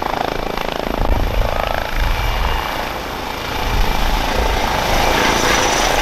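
Airbus (Eurocopter) EC135 P2+ police helicopter hovering low, its main rotor chopping over the whine of its two Pratt & Whitney PW206B turboshaft engines. The turbine whine grows stronger and louder over the last couple of seconds.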